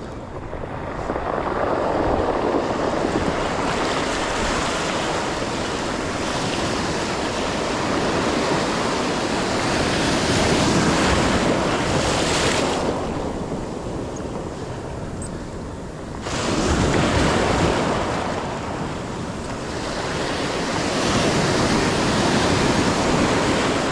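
Ocean surf: waves breaking and washing up the beach, the rush swelling and falling back several times, with wind buffeting the microphone.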